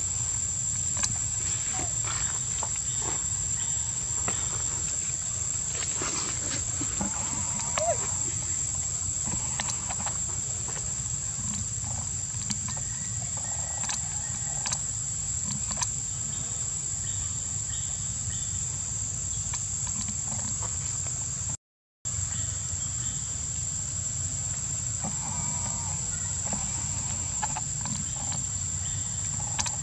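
Steady high-pitched insect drone over a low rumble, with scattered faint clicks; the sound cuts out for a moment about three-quarters of the way through.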